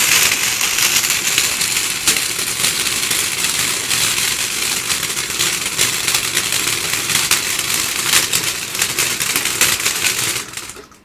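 A firework spraying sparks, hissing loudly with dense crackling all through, then cutting off about half a second before the end.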